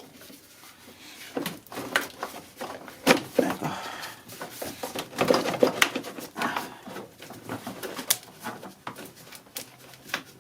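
Plastic air filter box cover and filter being handled and pulled out: scattered clicks, knocks and short scrapes of plastic parts, with no engine running.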